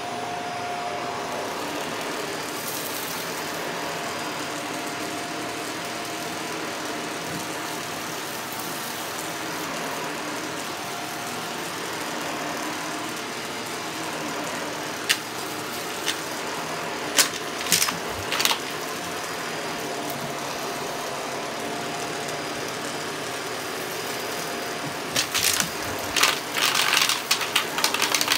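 Shark vacuum cleaner running steadily over carpet, a constant motor hum with a faint steady whine. A few sharp clicks come about halfway through, and a stretch of uneven crackling comes near the end.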